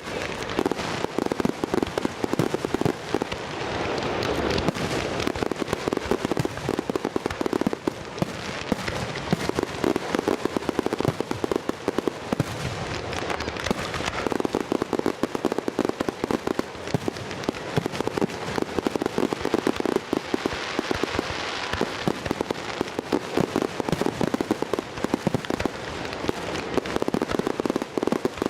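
Fireworks display: a dense, unbroken crackle of many rapid small pops and bursts, swelling and easing in waves.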